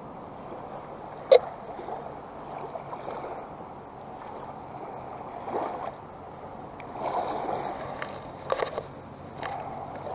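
Shallow sea water lapping and sloshing steadily, with one sharp click about a second in and a few lighter clicks and knocks near the end.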